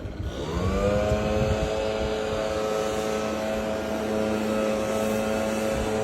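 A motor or engine spinning up: its hum rises quickly in pitch about half a second in, then runs at a steady pitch.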